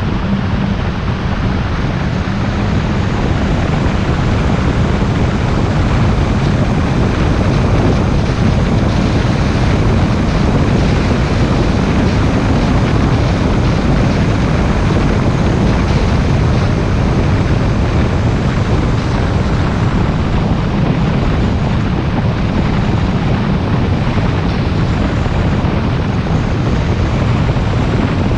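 Car driving along a road, a steady rumble of tyres and engine with wind rushing over the microphone; the level rises slightly in the first few seconds, then holds.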